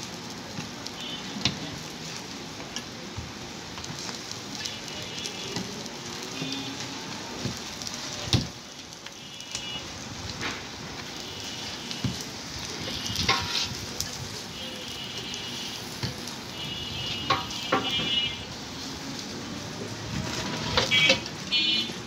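Parathas frying in oil on a large flat iron griddle, sizzling steadily, with a metal spatula now and then knocking and scraping against the griddle as they are turned.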